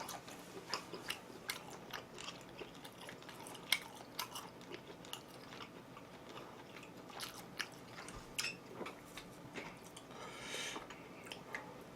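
Close-miked chewing and biting of food, with many small, irregular crunchy clicks from the mouth.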